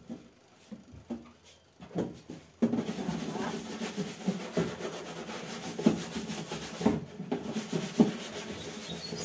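A few scattered knocks, then from about two and a half seconds in a steady scraping and rubbing full of small clicks, as of hands working things on a hard surface.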